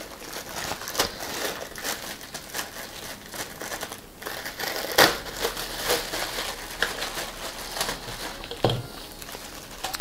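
Thin plastic packaging bag crinkling and rustling as it is pulled off a blender's plastic jug, with a sharper crackle about halfway through and a short knock near the end.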